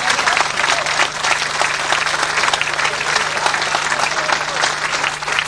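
Audience applauding: many hands clapping densely and steadily, over a steady low hum.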